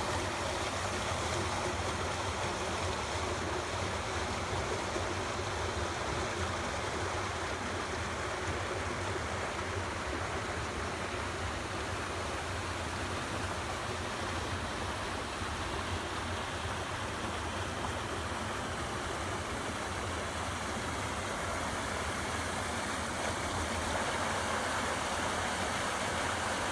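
Muddy stormwater runoff after heavy downpours rushing steadily along a street gutter, a little louder near the end where it pours into a curb storm-drain inlet.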